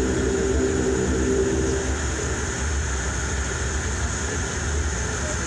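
Pratt & Whitney Canada PW150A turboprop engines of a Dash 8-Q400 running at taxi power, heard inside the cabin as a steady low drone with a high turbine whine over it. A lower hum in the drone fades about two seconds in.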